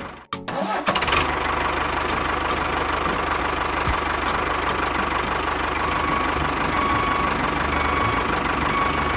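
Engine running steadily, with a steady whine and faint regular ticking, briefly dropping out about a third of a second in.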